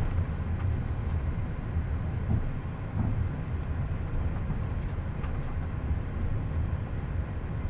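Steady low rumble inside a Gulfstream G550 cockpit on the ground.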